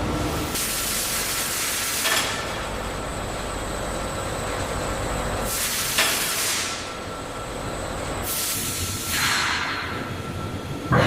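Steady machinery hum with faint whining tones, broken three times by long bursts of hissing, like air or steam being released; the first two bursts end with a sharp click.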